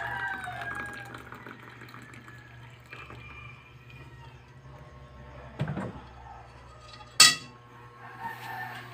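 Liquid poured into a mug over the first second or so, over a low steady hum. A dull thud follows about five and a half seconds in, then a sharp knock about seven seconds in, the loudest sound.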